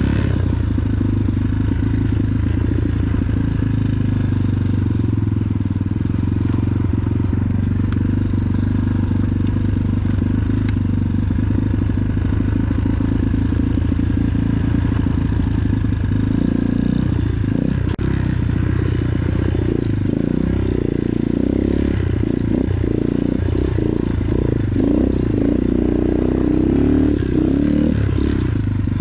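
X-Pro Titan 250cc dirt bike's single-cylinder four-stroke engine running while riding a dirt trail. Steady at first; about halfway through the engine note becomes uneven, rising and falling, with knocks and clatter.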